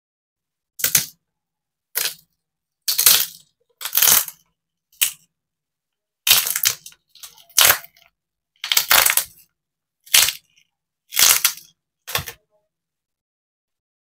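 A cracked tempered-glass screen protector being pried up and peeled off a phone screen: eleven short crackling, scraping bursts, each under half a second, separated by silence.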